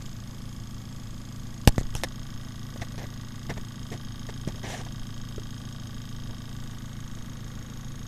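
Rewound CPU fan running on a Bedini pulse-charger circuit: a steady hum with faint high whining tones. One sharp click comes a little under two seconds in, followed by a few lighter ticks.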